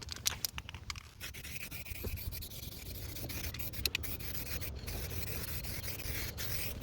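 Aerosol can of UPOL High Gloss Clear spraying a first coat onto a sanded headlight lens: a steady hiss with a couple of very brief breaks. A few light clicks come in the first second.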